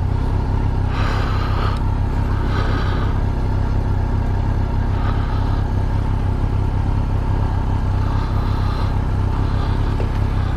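Kawasaki GTR1400's inline-four engine idling steadily while the bike stands still, with a few brief soft rustles over it.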